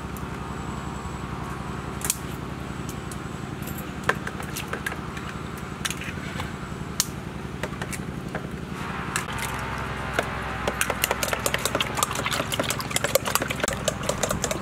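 Spoons clicking against bowls as eggs are cracked and beaten, a few scattered clicks at first, then rapid, dense clicking of whisking in the last few seconds. A steady low motor hum runs underneath.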